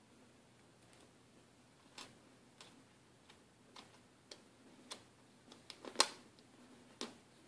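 Small, sharp, irregular clicks and taps of a SIM card and SIM tray being handled and fitted into an iPhone 4, about ten of them starting a couple of seconds in, bunched and loudest around six seconds in.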